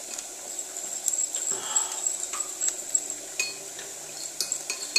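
Carrot sticks and ginger frying in a non-stick pan with a faint, steady sizzle, while light clinks and knocks of kitchenware come every so often.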